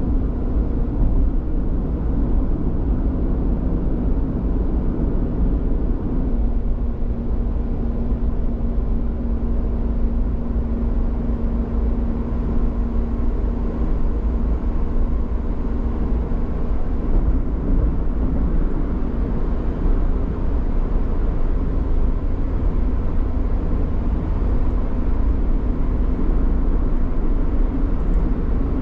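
Motor vehicle driving along a road: a steady engine drone over a low road rumble.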